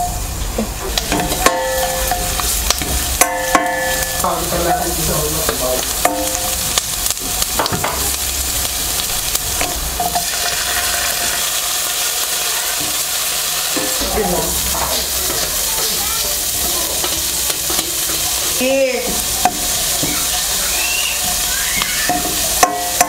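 Chopped onion, garlic, tomato and pechay sizzling in hot oil in a stainless steel pan, with a steady hiss, while a spoon stirs them, scraping and clicking against the pan.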